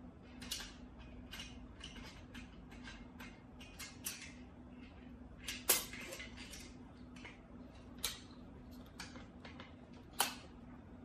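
Parts of an SX-10 slingshot rifle being handled and fitted together: an irregular run of small clicks and knocks, with two sharper clicks about six and ten seconds in, over a faint steady hum.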